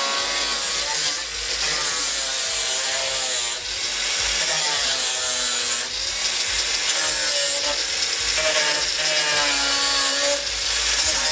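Angle grinder grinding the steel of a car body, throwing sparks. Its motor whine sags in pitch as the disc is pressed into the metal and recovers when it is eased off, several times over.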